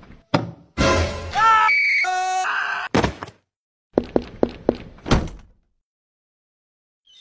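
Cartoon sound effects: a couple of sharp knocks, then a short musical sting with sliding pitches, another knock, and a quick run of about six taps some four to five seconds in.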